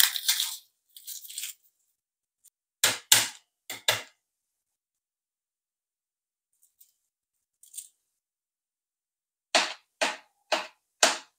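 Papery crackling of garlic skins being peeled by hand, then sharp knocks of a kitchen knife on a plastic cutting board: a few about three to four seconds in, and near the end four evenly spaced chops, about two a second, as the garlic is cut.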